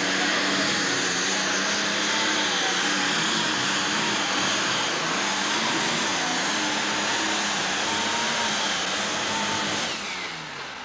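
Super stock pulling tractor's turbocharged diesel engine running flat out under load while dragging the sled, with a steady high whine over the engine. About ten seconds in, the pitch falls and the engine winds down as the pull ends.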